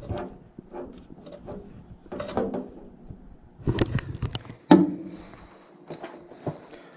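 Irregular clicks, knocks and scrapes of parts and tools being handled, with a sharper knock a little past the middle that rings briefly.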